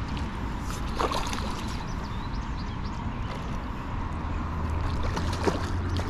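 Water sloshing and trickling in a shallow ditch, likely a small carp splashing as it is played, over a low steady rumble. There are a few short sharp sounds about a second in and again near the end.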